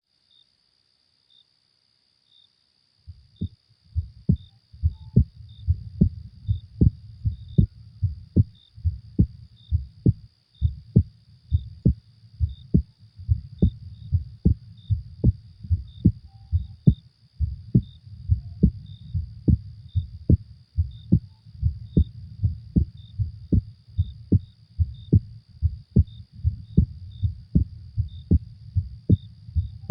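A human heartbeat thumping in a steady, even rhythm of low thuds, starting about three seconds in. Under it is a faint, steady, high night-ambience sound with small regular pips.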